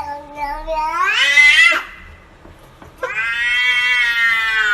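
A cat giving two long, drawn-out meows. The first rises in pitch before breaking off about two seconds in; the second starts about a second later and is held steady.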